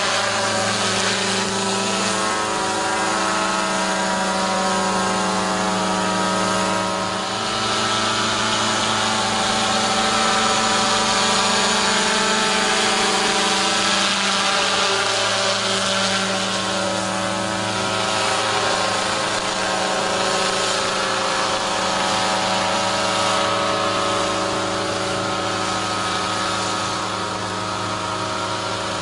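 Small unmanned crop-spraying helicopter flying low over a paddy: a steady engine-and-rotor drone with a constant pitch, growing a little louder and hissier in the middle as it passes close.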